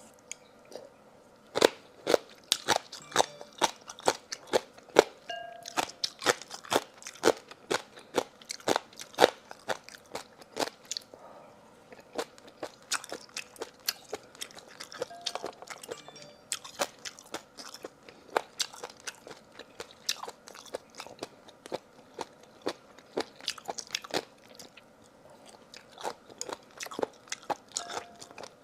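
Close-miked eating of seafood: a person biting and chewing, with many sharp crunches in quick runs broken by a couple of short pauses.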